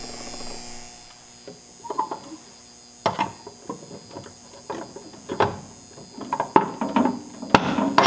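A fire alarm speaker strobe gives a high buzz over a steady hum that fades out about a second in. After that a pull station is reset with a key, making a run of irregular plastic and metal clicks and knocks, the sharpest near the end.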